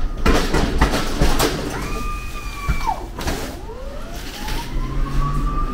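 Knocks and rattles, then an electric motor whining: the whine drops away about three seconds in, and then climbs steadily in pitch as the motor speeds up again.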